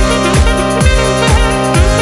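Electronic dance music with a kick drum on every beat, about two a second, under held synth chords.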